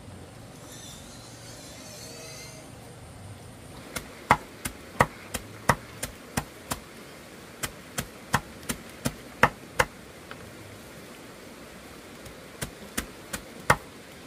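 A series of sharp knocks, about two or three a second, starting about four seconds in and coming in three runs with pauses between them.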